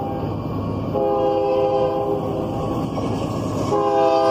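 Union Pacific diesel locomotive's air horn sounding a chord of several notes as the train approaches a grade crossing: one blast of about two seconds starting about a second in, and another starting near the end, over the rumble of the oncoming train.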